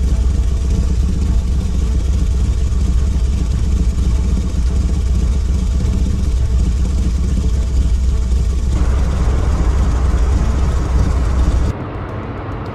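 Military vehicle engine sound effect: a steady, loud, low engine rumble as a motorcycle with sidecar drives up, with more rattling mid-range noise joining about two-thirds of the way through. About a second before the end it cuts to a quieter, lighter engine sound as an armoured tracked vehicle rolls in.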